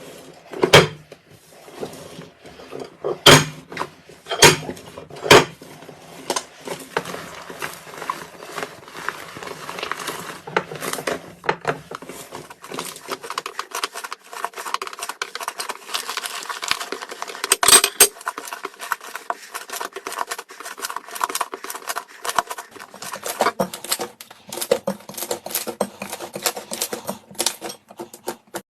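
Slime being handled and pressed, giving many sharp clicks and pops: a few loud, spaced ones at first, then a dense crackling run with one especially loud pop about two-thirds of the way in.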